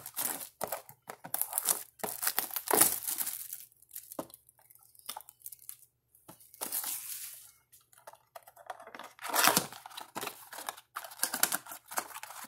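Plastic wrappers of trading card packs being handled and torn open: irregular crinkling rustles in clusters, the loudest burst about three quarters of the way in.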